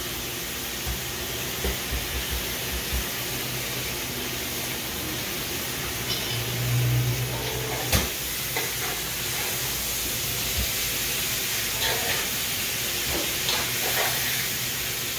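Chicken feet and seasonings sizzling steadily in a karahi, with a spoon knocking and scraping against the pan now and then as they are stirred, once with a sharp click.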